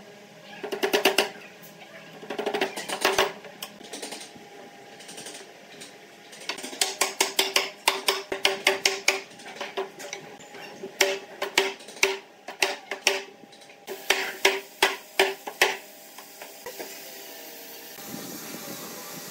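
Wooden mallet knocking on pine boards in quick runs of blows, seating the boards together on their wooden dowels; each knock has a short ringing tone from the board. Near the end the knocking stops and a steady hiss takes over.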